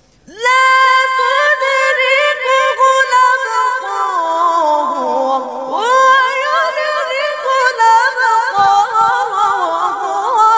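A boy's high voice in melodic Quran recitation (tajweed), drawing out long phrases with wavering, ornamented turns. It begins about a third of a second in, breaks off briefly near the middle, and goes on into a second drawn-out phrase.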